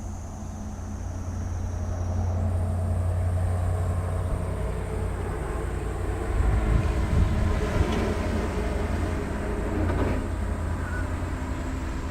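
Jet engines of a Boeing 777 airliner rumbling as it rolls along after landing, growing louder a couple of seconds in and loudest around the middle.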